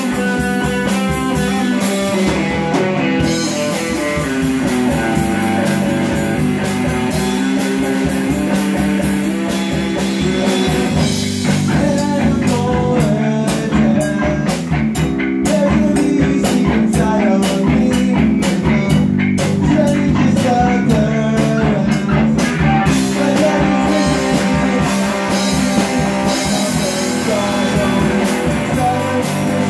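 A rock band playing live: a semi-hollow electric guitar, an electric bass and a drum kit, the drums keeping a steady beat.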